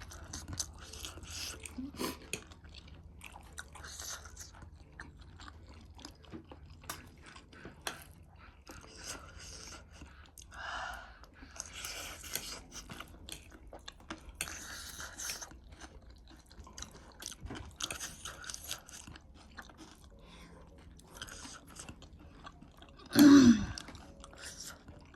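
Close-up chewing and crunching of spicy noodles and chatpate, with many small mouth clicks and several short hissy bursts. About a second and a half before the end comes one short, loud vocal sound with a sliding pitch.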